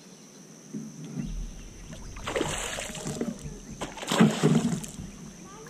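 A hooked smallmouth bass thrashing at the surface right beside a kayak. It splashes twice, once about two seconds in and again about four seconds in.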